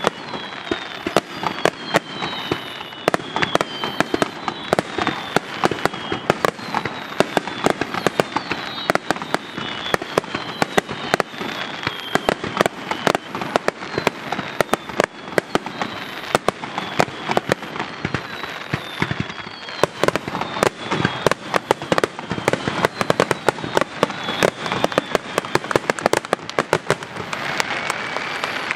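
An aerial fireworks display firing in rapid, dense barrages: shell bursts overlapping one after another, with many whistling tones that slide down in pitch.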